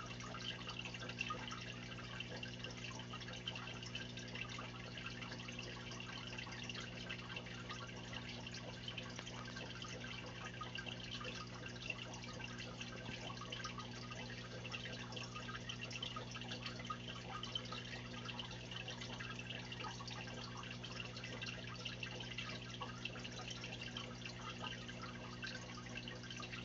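Aquarium air bubbling and trickling at the water surface, a constant fizzy crackle with small drips, over a steady low hum.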